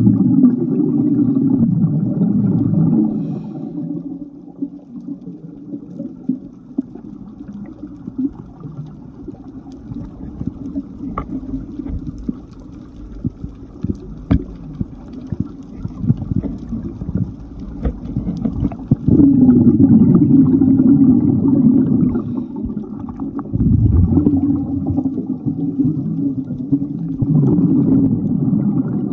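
Underwater scuba breathing: exhaled bubbles from the diver's regulator rumble and gurgle in long surges near the start, in the middle and near the end. Quieter stretches between them are filled with scattered sharp clicks.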